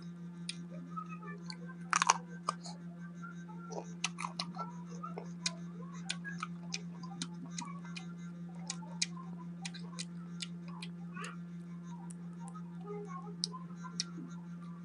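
Scattered sharp clicks and taps from fingers and nails handling pieces of green mango on a plate, with a louder cluster about two seconds in, over a steady low hum.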